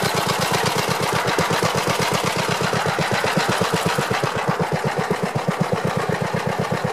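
Single-cylinder engine of a Gravely walk-behind tractor running steadily, an even rapid beat of about ten pulses a second.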